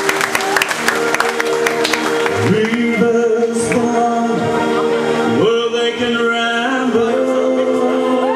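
Live band playing a song's introduction: sustained chords held steady, with sliding notes swooping over them. The tail end of audience applause shows as scattered clapping during the first couple of seconds.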